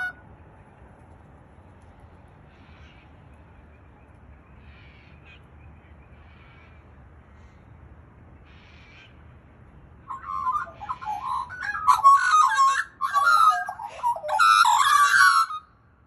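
Australian magpie (Gymnorhina tibicen) song: a few faint soft calls, then from about ten seconds in a loud, rich warbling carol for about six seconds that stops abruptly near the end.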